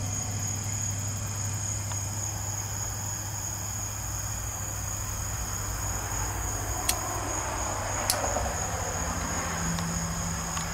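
A steady high-pitched ringing tone with a low hum under it, and two sharp clicks a little past the middle.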